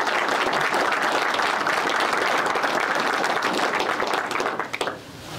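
Audience applauding, the clapping stopping near the end.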